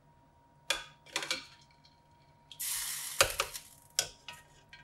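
Wire-mesh skimmer knocking and clinking against an enamelled pot while peaches are scooped out of hot water, with water splashing and pouring off the skimmer for about a second past the middle.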